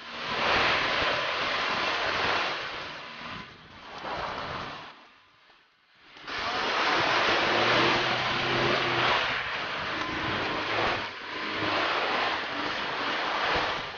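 UAZ Patriot SUV driving up a muddy, snowy slope: a loud rushing noise with the engine's note showing through in the second half. The sound drops out briefly a few seconds before the middle.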